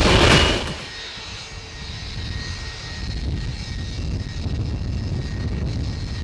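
Boeing 757-200F freighter's Rolls-Royce RB211 jet engines running at low power as it taxis: a steady low rumble with a faint high whine. The loud tail of the music intro drops away within the first second.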